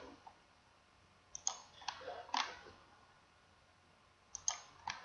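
Computer mouse button clicks, faint and sharp, in small groups: four within about a second starting a little over a second in, then three near the end.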